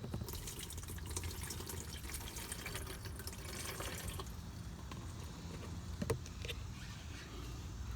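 Methanol being poured from a cup into the alky-injection reservoir: a trickling, splashing pour lasting about four seconds, followed by a sharp click about six seconds in.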